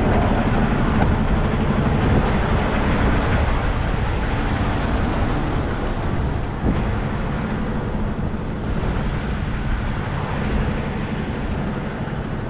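Semi truck's diesel engine running steadily at low speed, heard from inside the cab while the tractor-trailer is backed into a parking spot, with one short click about six and a half seconds in.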